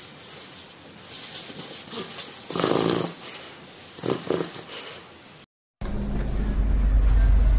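Saint Bernard puppy snoring in its sleep, with two louder snores about two and a half and four seconds in. After a cut, a loud, steady low rumble takes over for the last two seconds.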